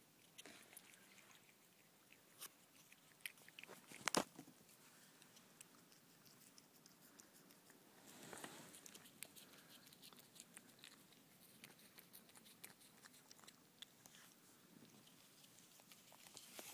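Faint wet licking and chewing of a cat eating ice cream from a cup, heard as soft scattered clicks, with one sharper click about four seconds in.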